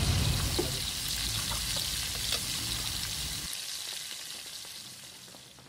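Fried rice sizzling in a large pan, with a few light ticks, gradually fading out to near silence.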